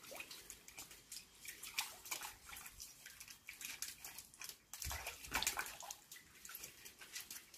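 Water in a small plastic dog paddling pool splashing and lapping in small irregular splashes and drips as a Jack Russell terrier paws at the rim and reaches for a floating ball, with a louder stir about five seconds in.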